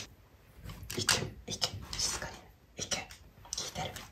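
A Kai Ken dog's claws tapping and scuffing on a wooden floor as it walks about: irregular short clicks and scrapes.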